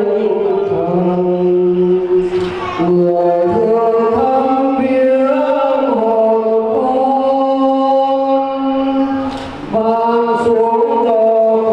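A slow Catholic hymn chanted by voices, on long held notes that move from one pitch to the next every second or two. There are two brief breaks, one about two seconds in and one near the end.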